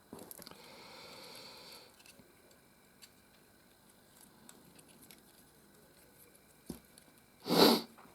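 Quiet handling of Lego bricks and thin LED light-kit wires: a soft rustle for the first couple of seconds, then scattered small plastic clicks. One short, louder noise comes near the end.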